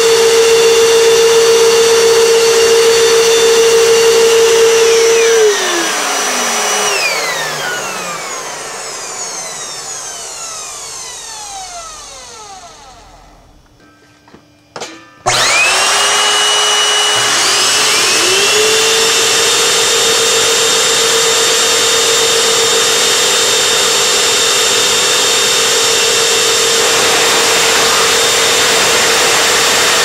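Home-built blower made of nine vacuum cleaner fan motors running with a steady, loud whine. About five seconds in it is switched off and the motors wind down with falling whines to near quiet; after a couple of clicks it is switched back on about fifteen seconds in, and the motors spin up with rising whines and run steadily at full speed.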